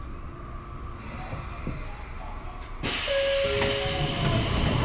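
Sotetsu 8000 series electric train arriving at a station: a low rumble, then about three seconds in a sudden, loud hiss of compressed air from the train's pneumatic system that runs on, with two brief steady tones just after it starts.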